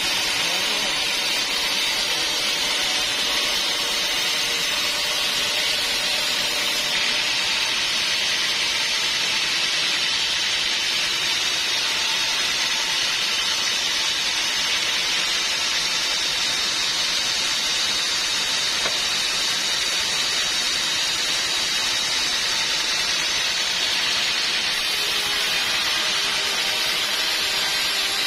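Sawmill blade cutting through a log, a steady hissing rasp that holds at an even level throughout.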